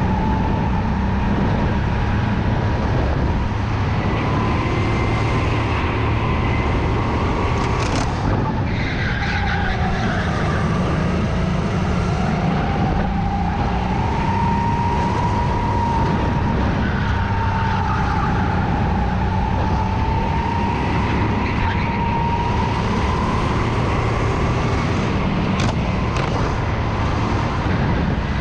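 Go-kart engine heard from on board, running steadily with its pitch dipping and rising as the kart slows for corners and speeds up again. A brief sharp noise comes about eight seconds in.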